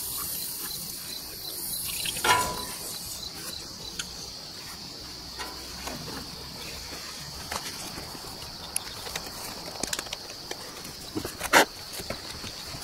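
Handling noises from a rubber radiator hose being worked onto an engine's coolant outlet: scattered light clicks and rubs, a knock about two seconds in and a sharp click near the end. A steady high insect drone runs underneath.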